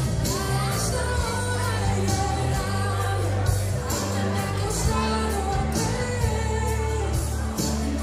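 Pop music with a singing voice over a steady beat and bass.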